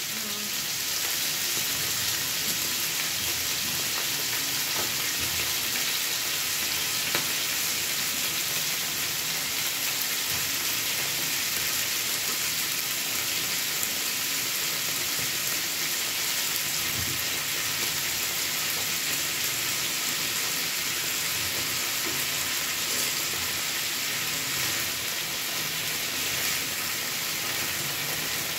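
Moringa drumstick pieces frying in hot oil in a nonstick pan: a steady sizzle.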